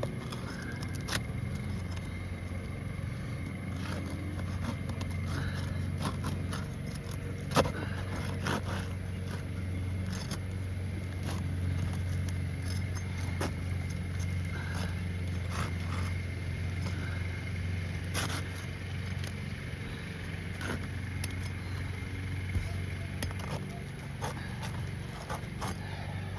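Roofing snake scraping and prying under old, brittle asphalt shingles, with scattered clicks, crackles and one sharp snap about seven and a half seconds in, over a steady low hum.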